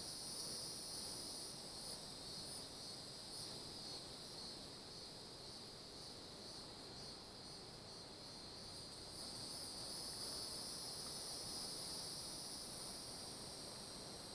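Insect chorus in the woods: a steady, high-pitched chirring drone that eases a little in the middle and swells again about two-thirds of the way in.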